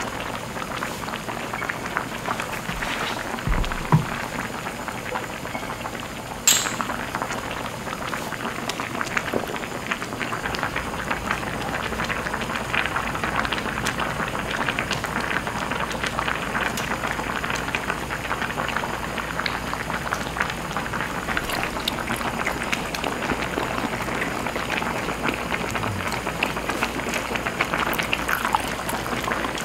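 A pot of liquid boiling hard, a steady dense bubbling crackle. There is a short knock about four seconds in and a sharp clink about six and a half seconds in.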